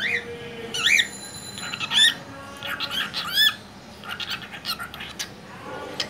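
Cockatiel calling: a string of short, high calls that rise and fall in pitch, coming one after another over the first three and a half seconds.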